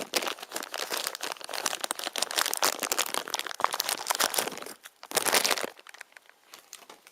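Blind-box figure packaging crinkling and rustling as it is handled and the figure's pieces are pulled out, with a pause and one more short burst of crinkling about five seconds in.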